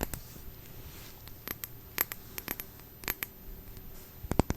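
Scattered light, sharp clicks and taps close to the microphone, about a dozen of them, with a quick cluster of several about four seconds in.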